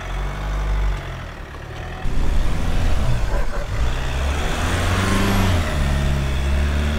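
Ford Ranger Wildtrak pickup's diesel engine revving up and down in rear-wheel drive in deep sand, with the rear wheels spinning. About two seconds in, a loud hiss of spraying sand joins the engine. The truck is getting no traction: with rear-wheel drive, no chance in the sand.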